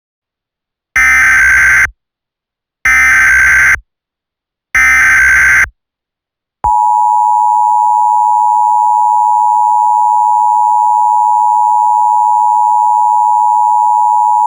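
Emergency Alert System header: three roughly one-second bursts of screechy digital data tones, then the two-tone attention signal (853 and 960 Hz) held steady for about eight seconds.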